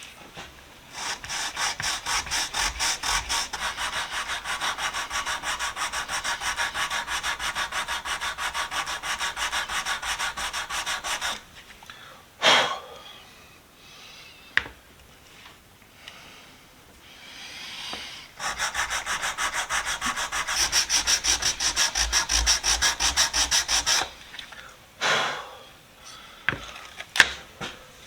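Sandpaper (150 grit, wrapped around a white-oak block) rubbed rapidly back and forth over the wooden handle of a vintage Proto screwdriver, at about four strokes a second. The sanding comes in two long runs, with a pause and a couple of short knocks between them.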